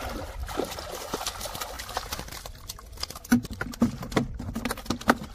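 Pond water splashing as a round bamboo fish trap is lifted out, then a quick run of sharp knocks and taps as the trap is tipped against a plastic bucket to empty the catch into it.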